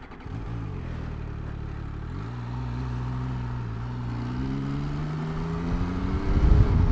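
MV Agusta Turismo Veloce 800's three-cylinder engine pulling away from a stop, its note climbing through the gears with upshifts about two and four seconds in. Wind noise builds near the end as the bike picks up speed.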